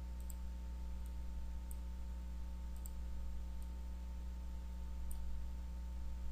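Faint computer mouse clicks, scattered and irregular, over a steady low electrical hum.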